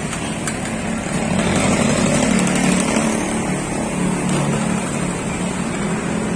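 A motor vehicle's engine running close by, swelling about a second and a half in and then easing off, with a faint click shortly after the start.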